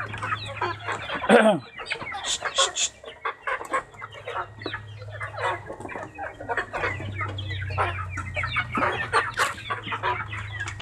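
A flock of ayam kampung super chickens clucking and squabbling as they scramble for fermented bran-and-sago feed, with many quick pecking taps. One loud squawk falls in pitch about a second in. A steady low hum runs underneath.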